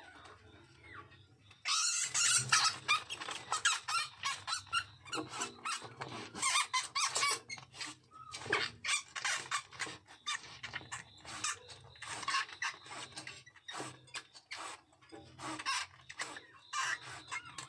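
Bamboo rat chewing a live-caught mouse, its incisors crunching through the bones in fast, irregular cracking bites. It starts about two seconds in and goes on with brief pauses.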